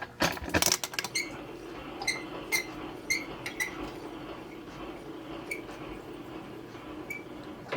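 Milling machine knee being lowered: a few knocks at first, then a steady hum with scattered light metallic clicks that stops just before the end.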